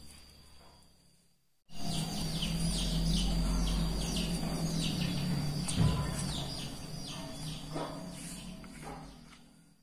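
Birds chirping, many short falling chirps over a steady low hum. The sound cuts in suddenly about two seconds in and fades out near the end.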